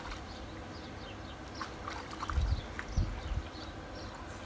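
A puppy splashing and pawing in shallow water in a plastic paddling pool: scattered light splashes, with two dull low thumps a little past halfway.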